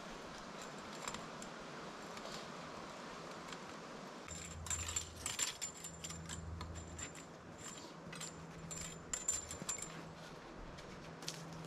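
Light metallic clinking and rattling, in quick irregular clicks, starting about four seconds in over a low steady hum.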